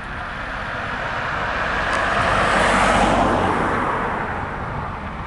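A vehicle passing close by: a rushing noise that swells to a peak about three seconds in and then fades, over a steady low rumble.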